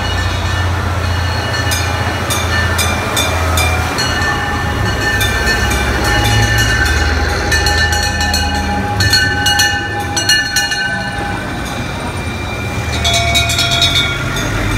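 Vintage fire engines driving slowly past one after another, their engines rumbling low, while a fire bell rings rapidly in several spells.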